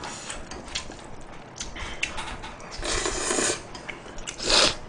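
A man slurping and chewing spicy stir-fried instant noodles, with light clicks of metal chopsticks on the pan early on; the loudest slurp comes near the end.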